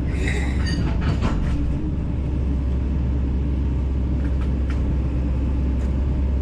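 Heavy diesel engine of a Kobelco 210LC-9 excavator running steadily with a deep rumble. A few short knocks and rattles come in the first second and a half.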